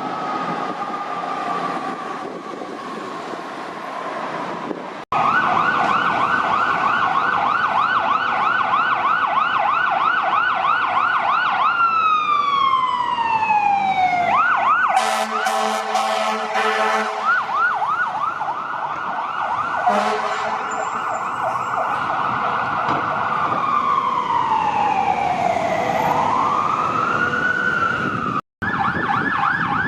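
Emergency vehicle sirens in a string of spliced clips: a slowly falling tone, then a fast electronic yelp that sweeps down into a slow wail and back up, with a burst of harsh horn blasts about halfway through.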